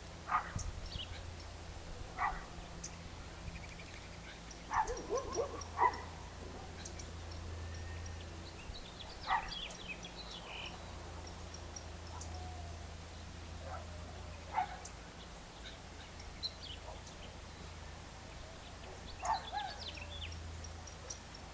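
Birds calling at dusk: scattered short, sharp calls and high chirps, a few clustered together. A steady low hum sits underneath.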